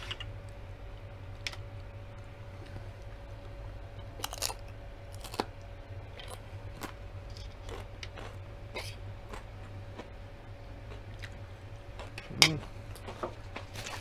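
Close-up chewing of tortilla-chip nachos: scattered crisp crunches of the chips as they are bitten and chewed, with one louder mouth sound near the end. A faint steady hum runs underneath.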